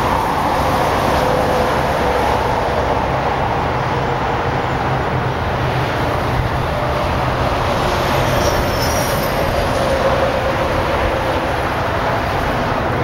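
Steady, unchanging low mechanical rumble with an engine-like hum, loud throughout.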